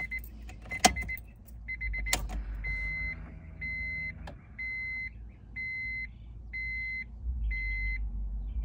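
Electronic beeping in a car. A few quick chirps and two sharp clicks come first, then a steady high beep repeats about once a second, six times, over a low rumble.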